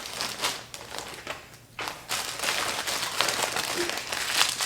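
Plastic toy packaging crinkling and rustling in irregular rustles as it is handled and opened, with a short lull about a second and a half in.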